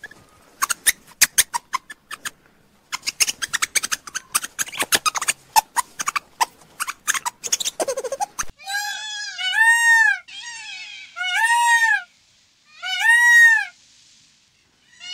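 Meerkats giving rapid, chattering clicks and chirps. About eight seconds in, this gives way to a peacock calling several times, each call a loud wail about a second long that rises and then falls in pitch.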